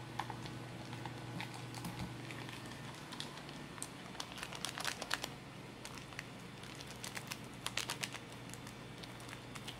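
Foil lid and packaging of a cup of instant jjajang ramyeon crinkling as fingers work at them, in irregular small crackles and clicks that come thickest in the middle and again near the end.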